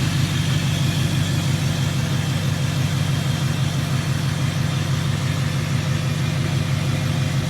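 Humvee's old V8 diesel engine running steadily at low, idle-level revs as the truck creeps forward in drive.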